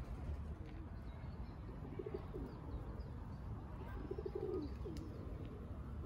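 Feral pigeons cooing: two bouts of pulsing low coos, about two seconds in and again around four seconds in, with a few faint small-bird chirps.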